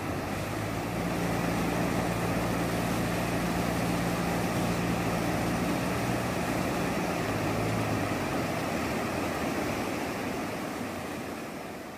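Muddy floodwater in a swollen river rushing over gravel bars: a steady, even rushing noise that fades out near the end. A low steady hum sits under it from about a second in until about eight seconds in.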